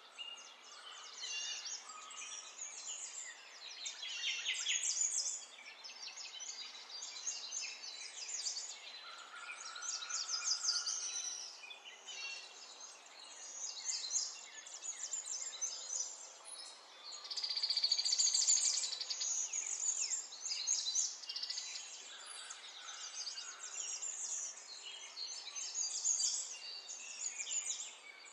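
Birds chirping and singing in overlapping bouts of short calls and trills, over a steady background hiss.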